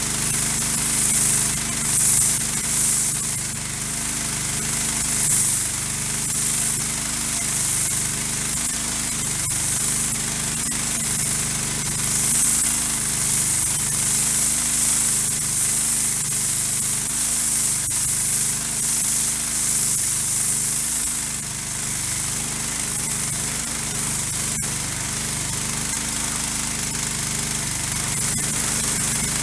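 Gas-engine pressure washer running, its small engine droning steadily under load while the turbo nozzle sprays water with a strong hiss that swells and eases. The owner thinks the engine still needs a little carburettor jetting.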